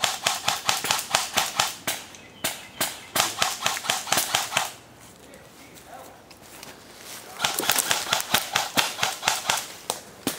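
Airsoft guns firing rapid strings of sharp cracks, about seven a second, with a short pause in the middle and a few single shots near the end.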